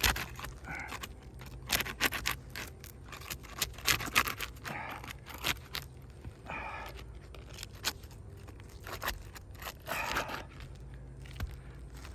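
Irregular scraping, crackling and clicking as a tool is worked under roof shingles, prying loose the hard, no-longer-pliable glue seal strips that hold them down.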